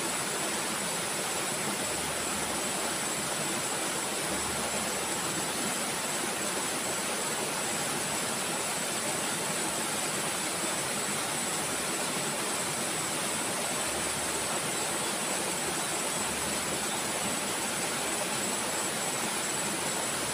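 Steady, even rushing noise of a river flowing, with a thin, high, steady whine over it.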